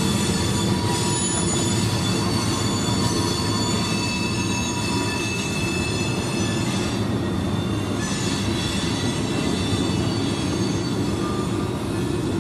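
Freight train's boxcars and covered hoppers rolling past, steel wheels on rail squealing in several steady high tones over the constant rolling noise.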